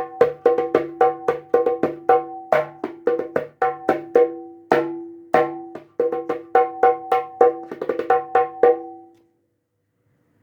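Sundanese jaipong kendang with white rope lacing, played by hand in a sound test of its first tuning: a quick run of pitched, ringing drum strokes that stops near the end.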